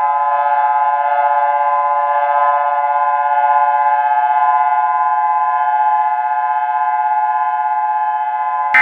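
Emergency-alert alarm tone: a loud, steady electronic chord of several pitches held together without rising or falling. Right at the end, a brighter, higher burst cuts in over it.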